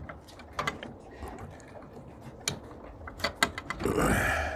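Scattered light clicks and taps, with a louder rustling scuffle starting about four seconds in.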